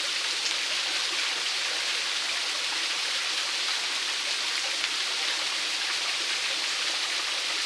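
Small waterfall: running water falling and splashing in a steady, even rush.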